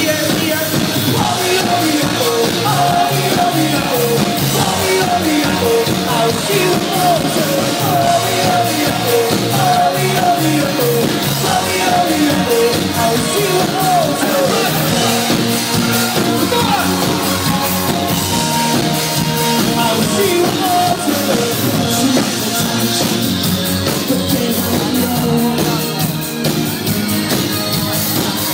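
Live pop-rock band playing a song: electric guitars and a lead singer, loud and dense, heard from within the audience.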